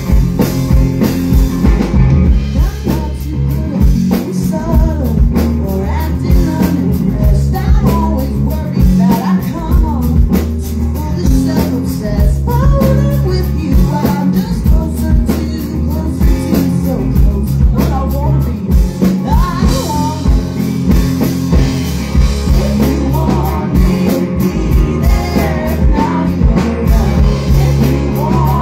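Live band music: a woman sings over her electric guitar, with bass and drums keeping a steady beat, loud throughout.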